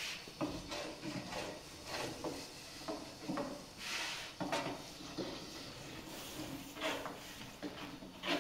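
Irregular knocks and clatters of hard objects being handled, several a second with short pauses, and a brief rustling rush about halfway through.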